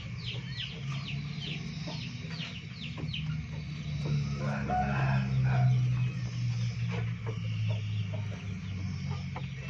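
Chickens: a run of short, high, falling peeps, several a second, fading out about three seconds in, over a low steady hum.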